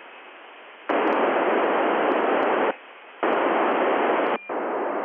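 FM receiver static from the TEVEL-5 satellite downlink: an even hiss that comes in about a second in, drops away briefly past the middle, returns, then settles lower near the end.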